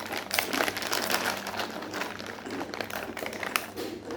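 Dense crunching and crackling of crisp potato chips being eaten close to the microphone.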